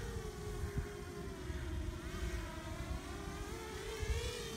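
Eachine V-Tail 210 racing quadcopter's motors and propellers whining in flight. It is one steady pitch that sags a little midway and rises again near the end, as the throttle changes.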